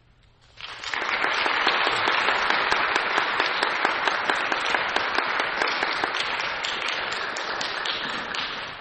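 Audience applauding: clapping starts about half a second in after a moment of silence, holds steady, and thins out near the end.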